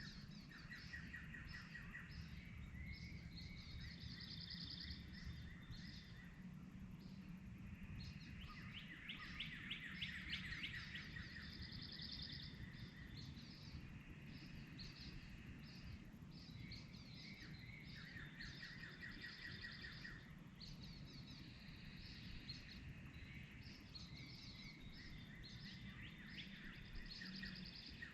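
Dawn chorus of several songbirds, faint, with trilled phrases repeating every few seconds and higher chirps between them, over a low steady background rumble.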